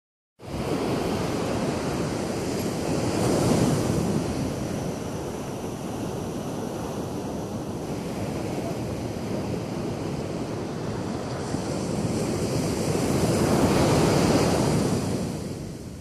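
Ocean surf washing up a sandy beach: a steady rush of breaking waves that swells loudest twice, a few seconds in and again near the end.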